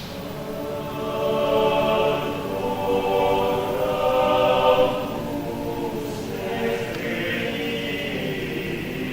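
Catholic choir singing held notes together, louder in the first half.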